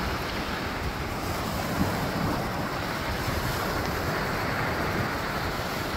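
Small waves washing up onto a sandy beach in a steady hiss, with wind rumbling on the microphone.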